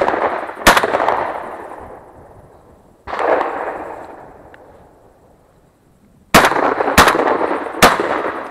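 Shotgun shots at flying ducks: a semi-automatic shotgun fires once near the start, then three rapid shots well under a second apart near the end, each report rolling away over a second or two. About three seconds in comes a single duller, more distant shot from a side-by-side double-barrelled shotgun.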